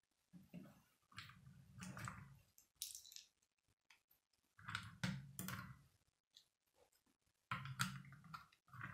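Plastic Lego pieces being handled and pressed onto a model helicopter: several short bursts of clicking and rustling with quiet gaps between.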